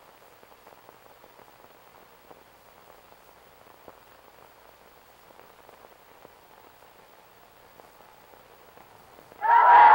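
Faint crackle and hiss of an old film soundtrack, with fine scattered clicks and nothing else. Near the end a loud sound of many voices from the crowd of recruits starts suddenly.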